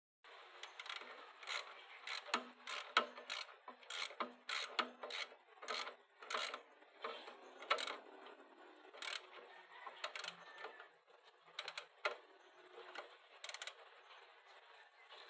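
Irregular sharp clicks and knocks of hand tools and metal parts being handled and fitted while a pressure washer is assembled, about one or two a second.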